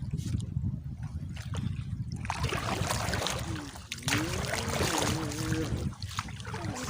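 Sea water sloshing and trickling against a small fishing boat's hull over a low steady rumble. The water noise swells about two seconds in.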